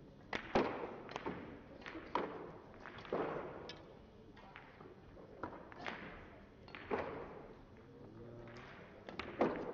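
Russian pyramid billiard balls being struck by cues and knocking together and off the cushions: a series of about a dozen sharp clacks, each with a short echo, including a quick cluster near the end.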